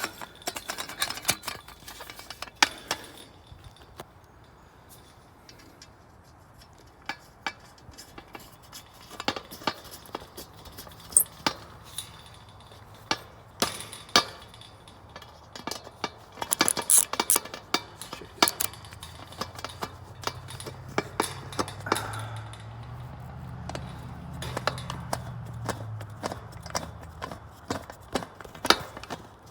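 Scattered metal clicks and clinks from handling flagpole hardware while threading a new rope, with a faint low hum in the second half.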